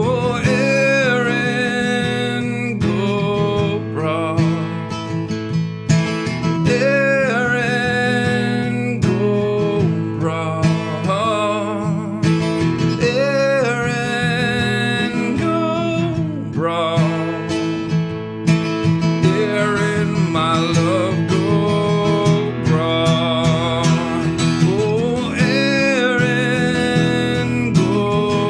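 A man singing a folk song while strumming a steel-string acoustic guitar, performed live into a single microphone.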